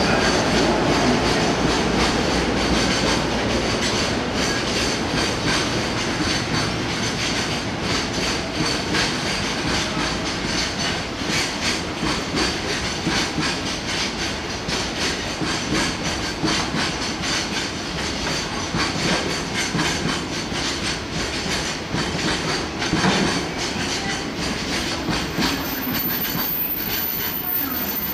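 Freight train wagons, container flatcars and open-top gondola cars, rolling past at speed, their wheels clattering steadily over the rail joints.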